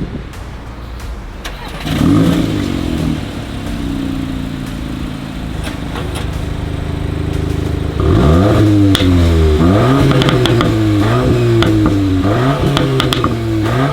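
Turbocharged 2.0-litre four-cylinder engine of a Mk8 VW Golf performance model revving through its exhaust. One blip comes about two seconds in, then a slow steady climb in pitch. From about eight seconds there is a quick series of sharp revs, five or six of them, with crackles.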